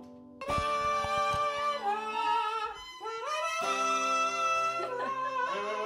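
Fiddle playing a melody, starting suddenly about half a second in, with held notes and slides between them.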